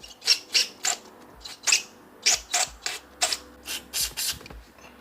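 Aerosol brake cleaner sprayed in short squirts through a removed fuel injector to flush dirt out of it: about ten quick hisses at an uneven pace.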